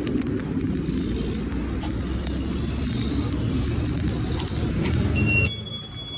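Car running, heard from inside the cabin as a steady low rumble. Near the end the rumble cuts off suddenly and a few high electronic beeps sound, as when the engine is switched off.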